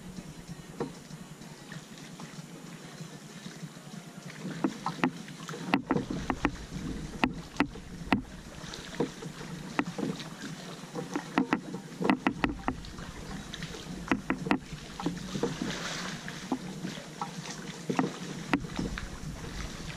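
Kayak paddling: paddle strokes splashing in the water, with many irregular sharp knocks and clicks starting about four seconds in.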